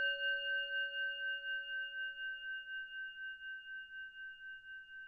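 Singing bowl ringing out after a single strike, its pure tones fading slowly with a steady wavering pulse of about four a second.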